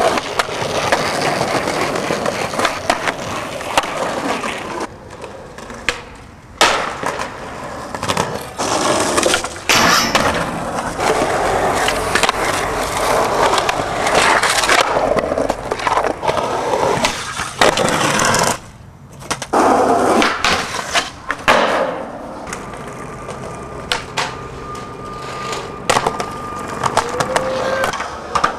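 Skateboard sounds across several clips: urethane wheels rolling on concrete, with sharp cracks of tail pops and landings, and trucks grinding on a ledge and a rail.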